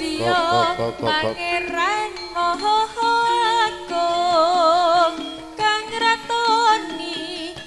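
Live Javanese jaranan senterewe ensemble music. About the first second has quick repeated bending notes, then a melody line with strong vibrato carries on over the accompaniment.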